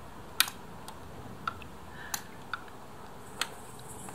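Small hand tool clicking against the scooter's screws and metal parts while the screws are checked for tightness: about six short, sharp clicks at uneven intervals, the loudest about half a second in.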